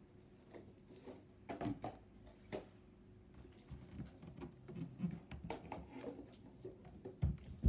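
Cardboard trading-card box and its lid being handled: scattered light taps, scrapes and rustles, with a louder thump near the end as the box is set down or closed.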